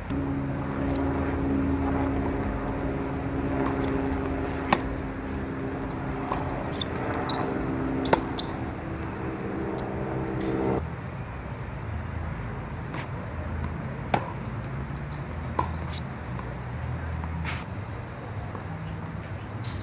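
Tennis ball being struck by a racquet and bouncing on a hard court: single sharp pops a few seconds apart. Under the first half runs a steady low hum that cuts off suddenly a little after halfway.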